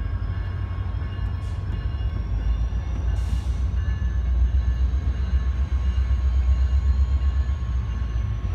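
Autorack freight cars rolling past at close range: a steady low rumble of wheels on rail, heaviest in the middle. Above it are faint thin steady tones and a faint high whine that slowly rises and then falls, with two brief hisses in the first few seconds.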